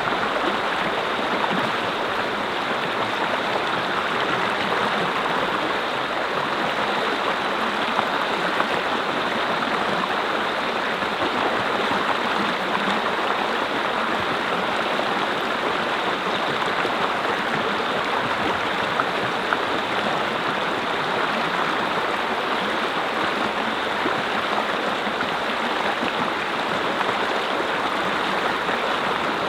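Mountain stream flowing, a steady rushing and splashing of water over rocks.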